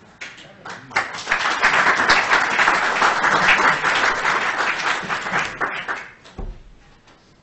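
Audience applauding: a few scattered claps, then a full round of applause about a second in that dies away about six seconds in, with a brief low bump near the end.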